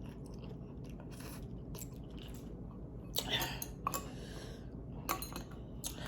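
Close-up eating sounds of a person chewing spicy ramen noodles: scattered small clicks and moist bursts, heaviest a little past halfway, over a steady low hum.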